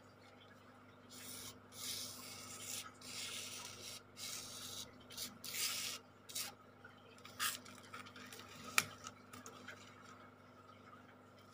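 Fingers rubbing coloured craft sand into an adhesive sand-art sheet: a series of short, gritty scratching strokes. Two sharp clicks follow later, the second being the loudest sound.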